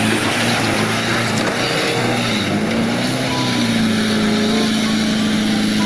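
A tanker truck's diesel engine running hard under load as the truck labours through deep mud, its note dipping and climbing again about halfway through, over a loud rushing noise.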